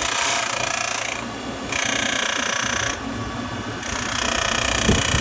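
Electric radiator cooling fan motor running with a steady whine. A higher part of the sound cuts in and out several times. The fan was making an unexplained noise on this test.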